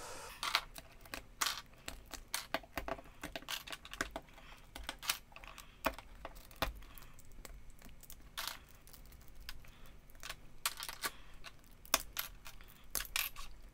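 LEGO Technic plastic parts clicking and knocking as they are handled and worked apart on a tabletop: an irregular run of small sharp clicks.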